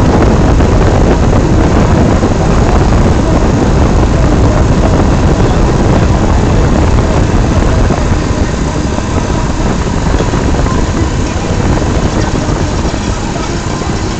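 Tour boat's engine running steadily, with wind buffeting the microphone. The sound eases off a little in the second half.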